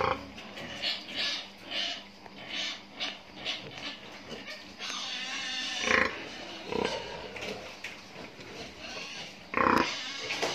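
Pigs grunting in short repeated calls, with a few louder calls about six seconds in and again near the end.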